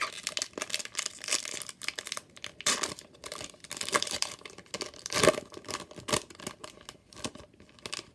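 Wrapper of a Topps Chrome trading-card pack being torn open and crinkled: a run of irregular crackles and rips.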